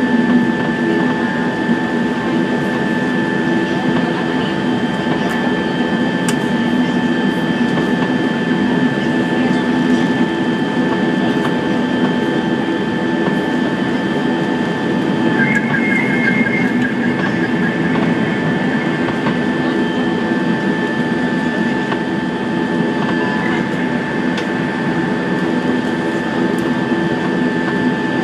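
Cabin noise of a Dornier 328 taxiing after landing: its engines run steadily with a constant drone and a high, steady whine on top.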